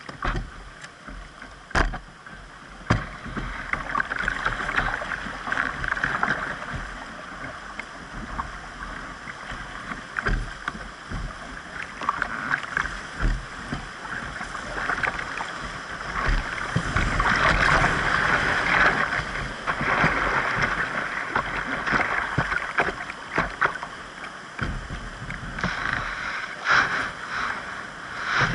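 Whitewater rapids rushing around a decked canoe, heard from the canoe's deck, swelling louder for a few seconds past the middle. Scattered sharp knocks and splashes from the paddle strokes and water hitting the hull.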